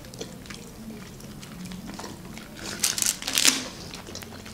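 Clear plastic film crinkling as sheets of fruit pastila are handled and pulled apart, louder for about a second around three seconds in.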